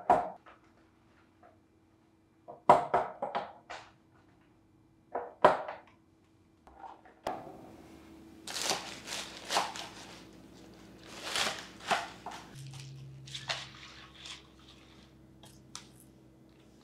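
Eggs set into a clear plastic egg-storage tray, giving a few separate light knocks of shell on plastic. About halfway in comes a denser run of plastic clatter and rustling as the container is handled.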